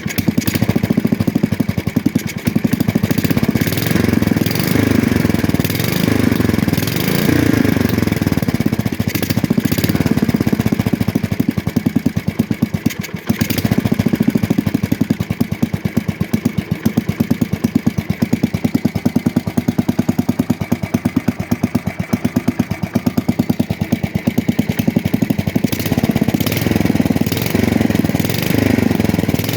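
Freshly reassembled small garden-tractor engine running steadily with a tap to it, its speed rising and falling slightly.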